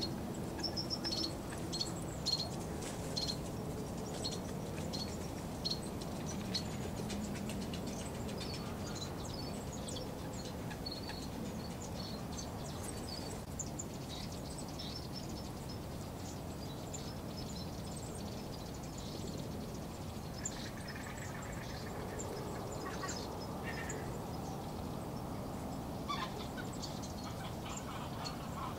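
Birds calling: a run of short, high chirps in the first several seconds, sparser chirps afterwards, and a lower, longer call about two-thirds of the way through, over a steady low background noise.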